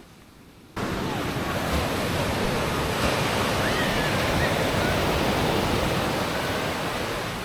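Strong ocean surf breaking on the shore with wind on the microphone, cutting in suddenly under a second in and then holding steady.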